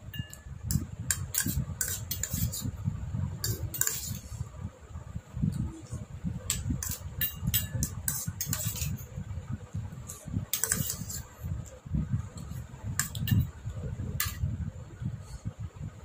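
Eating close to the microphone: chewing with many short, sharp clicks and the odd clink of dishes, coming irregularly.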